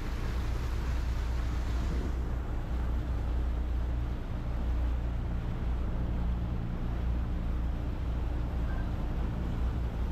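Motorboat engine running at a steady low drone, with the hiss of wind and water passing the boat, stronger for the first two seconds.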